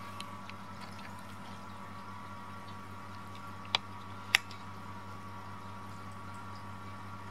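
Munchkin mother cat licking just after giving birth: faint wet licking sounds over a steady low hum. Two sharp clicks come about half a second apart, a little past the middle.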